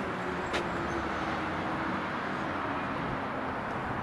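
Steady background noise with a faint low hum that slowly drops in pitch, and a single click about half a second in.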